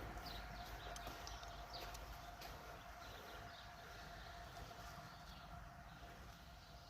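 Faint outdoor ambience: a steady faint tone with low rumble, and a few faint short bird chirps in the first couple of seconds.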